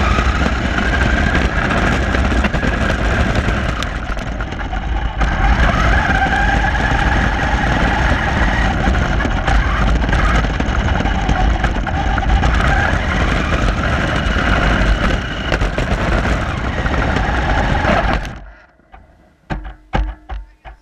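An RC car's motor and gears whining, recorded from a camera on the car, the pitch rising and falling with speed over a heavy rumble and rattle from the wheels on rough ground. The running stops about eighteen seconds in, followed by a few sharp knocks.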